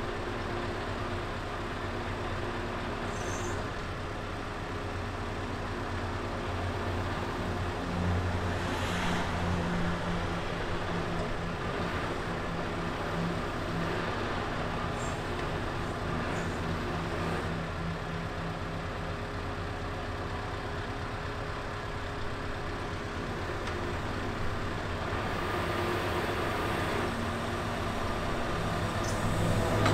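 Scania R650's V8 diesel engine running steadily under the crane's hydraulic load, its note rising briefly about nine seconds in and again near the end as the Copma loader crane is worked.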